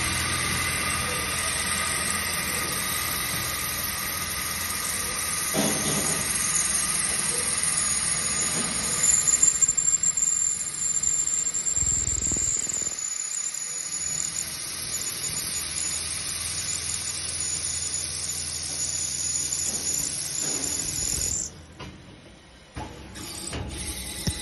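Special-purpose drilling and tapping machine running, with a steady mechanical hum and hiss as its spindle heads work a clamped part. A thin high whine comes in about a third of the way through, and the noise drops away briefly near the end.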